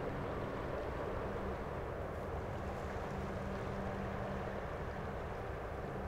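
Container ship's engine droning steadily as it sails past, a low hum with a couple of steady tones.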